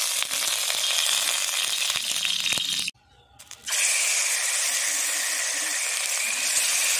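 Hot mustard oil sizzling steadily in an iron kadai as marinated fish pieces fry in it. The sizzle breaks off for under a second about three seconds in, then carries on as strongly.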